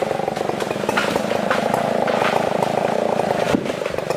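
Stihl two-stroke chainsaw engine running steadily at moderate revs, with one sharp knock about three and a half seconds in.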